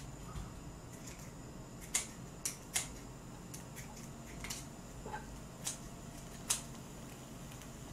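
Kitchen scissors snipping food in a wok: about half a dozen short, sharp snips at irregular intervals.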